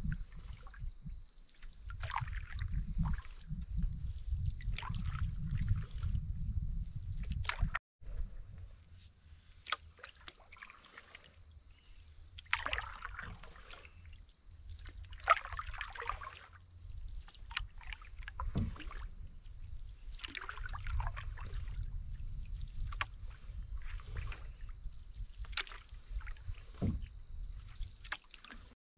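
Canoe paddle strokes dipping and splashing in calm water every second or two, over a low rumble. A steady, thin high-pitched tone runs underneath throughout.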